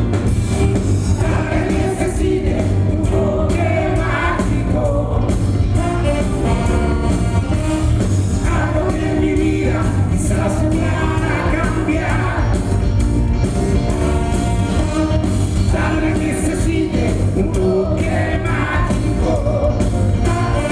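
Live rock band playing a song, with lead vocals over electric guitar and drums, loud and continuous.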